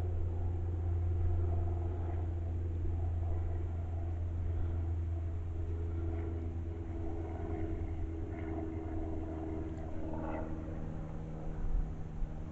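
A steady low motor hum with several steady tones above it, and a couple of short knocks near the end.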